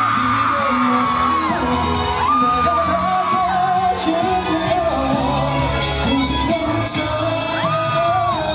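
Live pop song played loud through a hall's sound system: a held, bending melody line over steady low accompaniment, between sung choruses.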